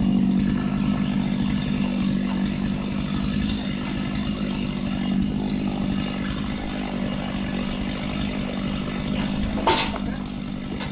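A motor engine running steadily at one even pitch, with a single sharp knock near the end.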